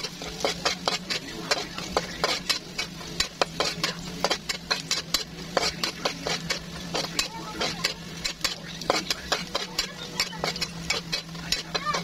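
Metal spatula scraping and clacking against a stone-coated wok in quick, repeated strokes, stirring chopped onion, garlic and ginger as they sauté.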